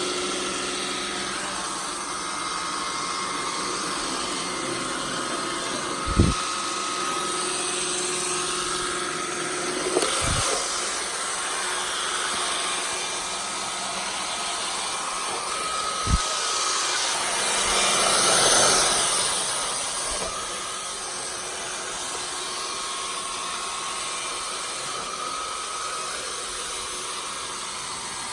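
Roomba S9 robot vacuum running: a steady whir of its suction motor and brushes, with three short dull knocks and, a little past the middle, a swell of louder rushing air that dies back down.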